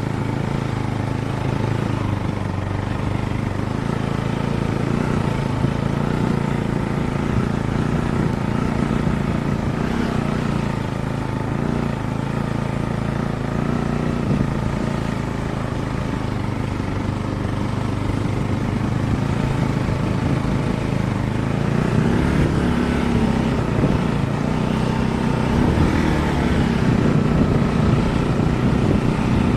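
Motorcycle engine running steadily while riding, its pitch wavering a little past the middle.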